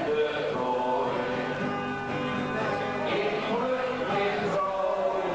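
Music with singing voices, going on without a break.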